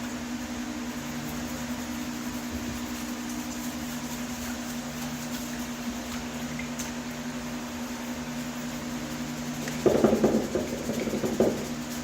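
A steady mechanical hum with a low drone. About ten seconds in, a louder rough rubbing noise lasts a second or two, in keeping with paint being scrubbed or sanded off a metal vent register.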